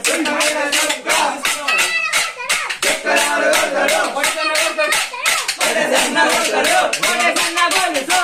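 Short wooden sticks clacked together in a quick, steady rhythm by a group playing the jajiri stick dance, with voices singing along.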